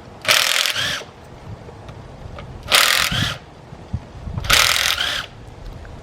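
Power drill/driver running in three short bursts, each under a second and rising in pitch as the motor spins up, backing out the oil pump bolts on a 5.3 LS engine.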